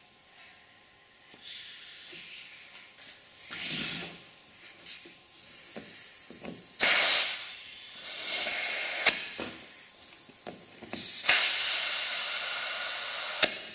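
Compressed air hissing from an air-hose chuck as it fills the inner tube of a small nylon wheel's tyre. The air comes in several bursts of varying length, with a few sharp clicks, and the last long burst cuts off sharply near the end.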